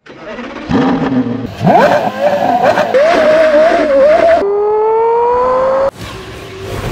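Porsche Carrera GT's 5.7-litre V10 engine in quick edited clips: revving hard with a sharp rise in pitch, running at high revs, then a long, smooth pull up through the revs that cuts off abruptly about six seconds in, leaving a quieter sound.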